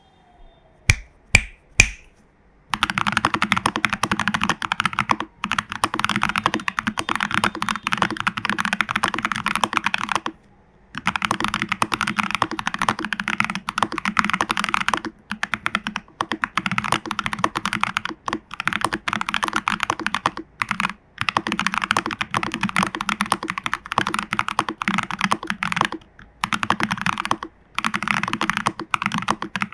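Mechanical keyboard being typed on: a TU40 plastic-case 40% board with lubed Fantasy Virus switches, case foam, PCB foam and a tape mod. Three separate key strikes, then fast continuous typing broken by a few short pauses.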